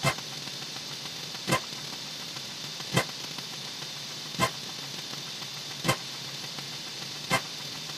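Six short, sharp clicks at an even pace, about one every second and a half, over a steady hiss with a faint low hum.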